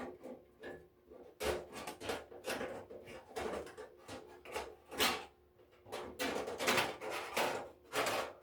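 Parts of an electric stove heater being handled and worked apart by hand: an irregular run of knocks, clicks and scrapes, busiest in the second half.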